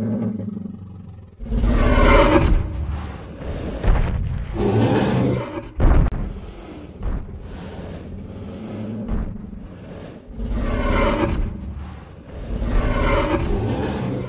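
Dinosaur roar sound effect: four long, deep roars with a low rumble under them, and a single heavy thud about six seconds in.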